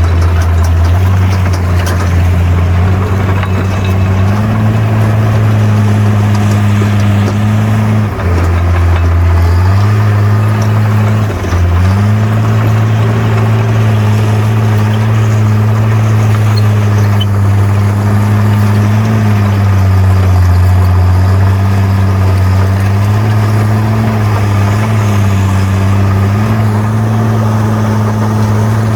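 Bulldozer's diesel engine running steadily, its pitch stepping up and down as the revs change under working load, with two brief dips about eight and eleven seconds in.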